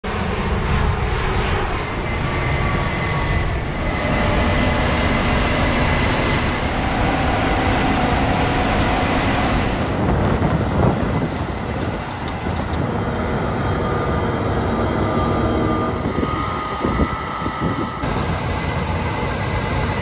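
Case IH 8250 combine harvesters running, a steady diesel engine and machinery noise, changing abruptly about halfway and again near the end.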